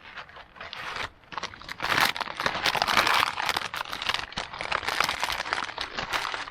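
Crinkly rustling and crackling handling noise, dense and continuous, building about a second in.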